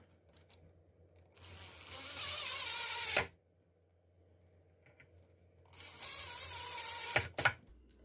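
Cordless drill driving the screws of a deadbolt's bolt faceplate into the door edge: two runs of steady motor whine of about two seconds each, with a pause between, then a couple of sharp clicks near the end.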